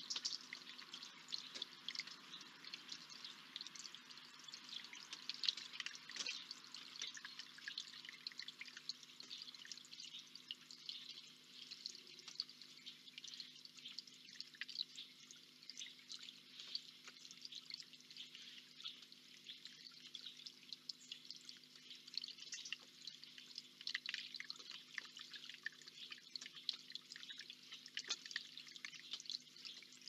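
Water trickling and dripping from a small stone garden cascade into its basin: a steady run of small irregular drips, with a faint steady hum beneath.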